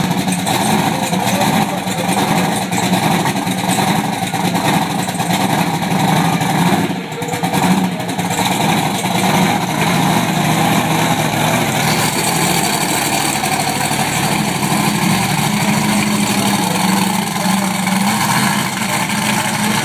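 Monster truck's engine running loud, with the truck pulling away from the fence and driving out into the arena near the end.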